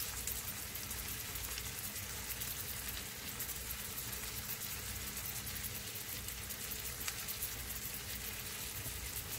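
Cabbage-and-egg pan pizza sizzling in cooking oil in a frying pan over very low heat: a steady, gentle sizzle with fine crackling.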